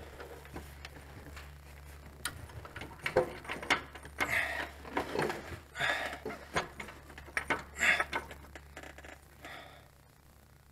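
Irregular small clicks, clinks and rustles of hands and tools working at the bolts and fittings of a backhoe's hydraulic pump, over a steady low hum.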